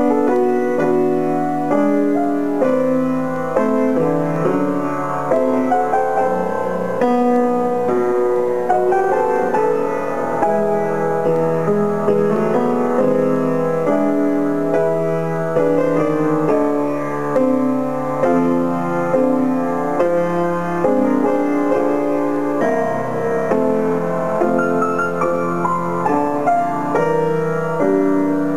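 Solo grand piano playing continuously, its notes held and ringing into one another.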